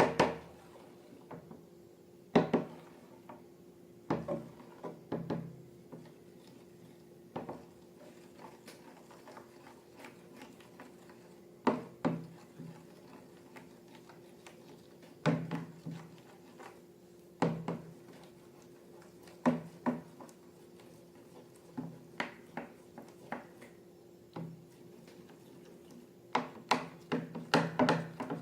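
Irregular knocks, taps and clatters of small objects and containers being handled and set down, one every second or two with a quick cluster near the end, over a faint steady hum.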